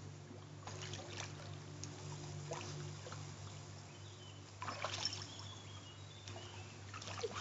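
English setter wading in a shallow garden pond, nosing into the water: quiet splashes and trickling drips, the loudest cluster a little under five seconds in. A steady low hum runs underneath.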